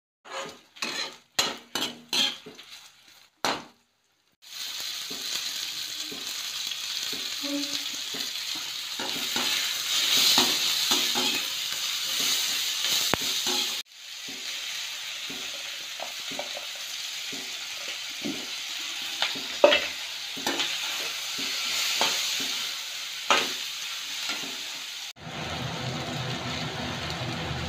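A few clinks of a metal spoon in a pot of boiled noodles, then onions and green capsicum sizzling in a hot wok with the spatula knocking and scraping against the pan. Near the end the sizzle gives way to a steadier low hum.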